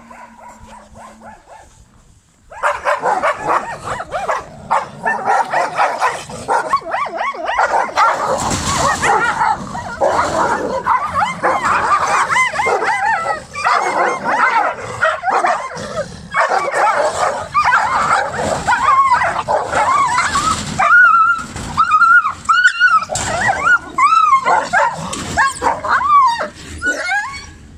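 Dogs in a fight: a loud, dense burst of overlapping barking and yelping breaks out a couple of seconds in and goes on without a break. Toward the end it thins to separate high, arching yelps and whimpers.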